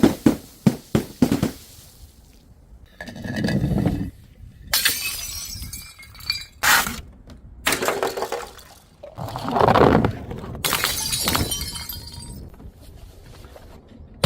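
Glass bottles breaking one after another: a quick run of sharp knocks at the start, then several shattering crashes with shards tinkling and scattering.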